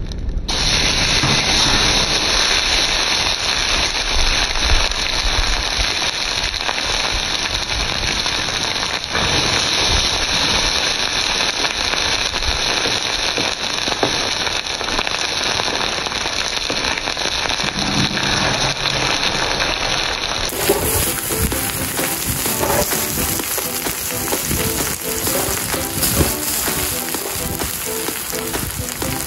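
Mass of burning matches fizzing and crackling steadily as the flames die down to smouldering.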